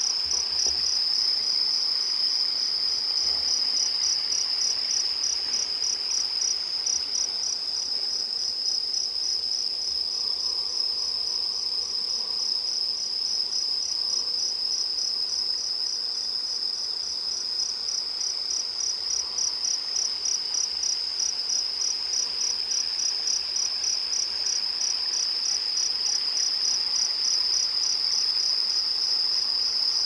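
Crickets chirping: a steady, high-pitched chirp repeating evenly several times a second.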